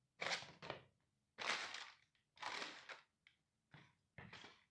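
A McDonald's paper bag being crushed under a Nike sneaker's sole: three loud crunching, crinkling stomps about a second apart, then a few smaller crinkles near the end as the bag flattens.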